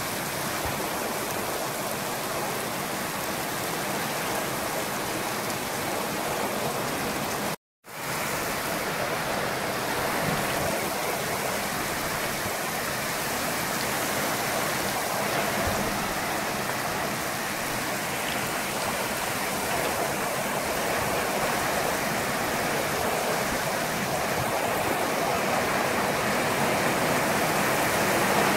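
Torrential wind-driven rain in a thunderstorm microburst: a dense, steady hiss of rain, rising a little toward the end. The sound cuts out for a moment about eight seconds in.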